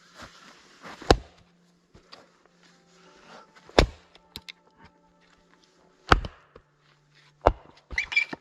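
Four heavy chopping blows on wood, about two to three seconds apart, then a quick run of lighter knocks near the end.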